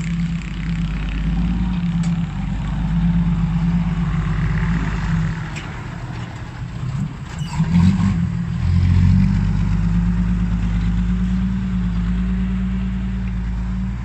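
Kobelco SK140 excavator's diesel engine running under load, its note swelling and easing as the machine works, with a few short knocks about eight seconds in.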